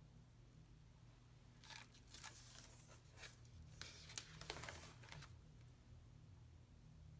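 A collaged sketchbook page being turned by hand: the paper rustles and crinkles for about three and a half seconds, with one sharp snap a little past the middle.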